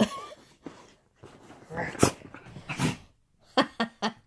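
Husky puppy making a handful of short sounds close to the microphone, spread a second or so apart.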